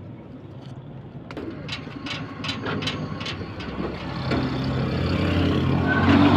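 A motor vehicle engine running close by, growing louder over the last couple of seconds. Before it comes a quick series of sharp ticks or taps.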